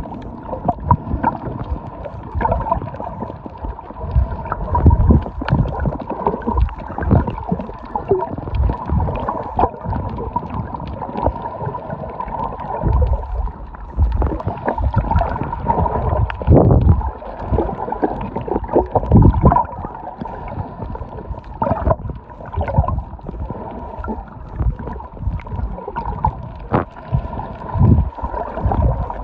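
Muffled underwater sound picked up by a microphone held below the surface while snorkeling: water gurgling and knocking irregularly against the microphone, over a steady high hum.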